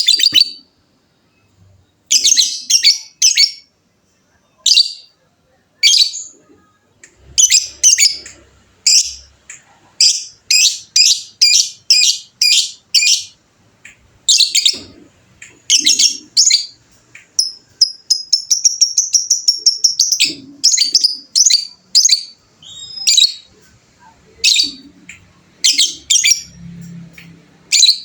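Lovebird chattering in repeated bursts of high, shrill chirps, then breaking into a long, rapid trill about two-thirds of the way through and another fast run near the end: the drawn-out chatter (ngekek) prized in singing lovebirds.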